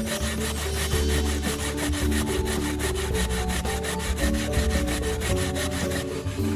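Coconut flesh being grated by hand on a flat metal grater: a rhythmic rasping of quick, even strokes.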